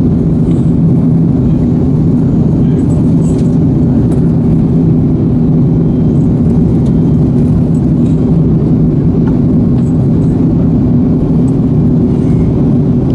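Steady airliner cabin noise from inside the cabin: the drone of the jet engines and rushing air, with a low steady hum.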